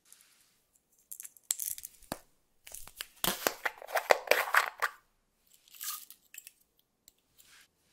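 Small plastic strawberry-shaped container being handled and opened: a run of sharp plastic clicks and crackling, loudest midway, then a short rattle as tiny polymer-clay strawberry slices are shaken out.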